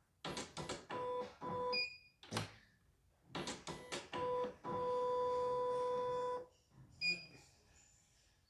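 Portable computerized embroidery machine's control panel beeping while its screen is tapped through a design selection. There are several clicks and short beeps, then one longer steady beep lasting nearly two seconds.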